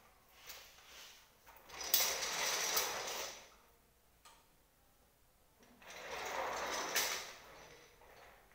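Office chair parts being handled: two stretches of mechanical rattling and scraping, each about a second and a half long, the first starting sharply about two seconds in and the second ending in a click near seven seconds.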